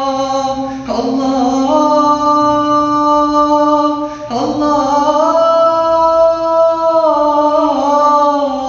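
A man singing an Arabic nasheed, drawing out long held notes that step up and down in pitch, with short breaks about a second in and about four seconds in.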